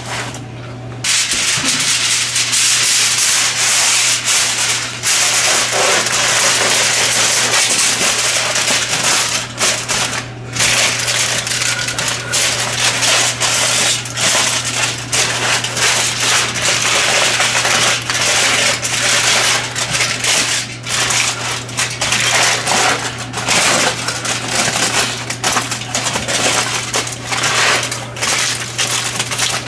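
Aluminium foil crinkling and crackling as it is folded and pressed by hand around a food packet, loud and nearly continuous, with short pauses about a second in and about ten seconds in. A steady low hum runs underneath.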